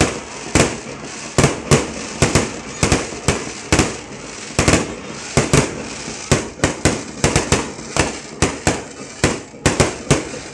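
Aerial fireworks bursting in a rapid barrage: sharp bangs come two to four times a second, one on top of the next.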